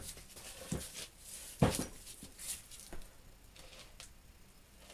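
A small machine vise with a cast body being handled and turned over on the workbench: several separate light knocks and clunks of metal against the bench, the loudest about a second and a half in.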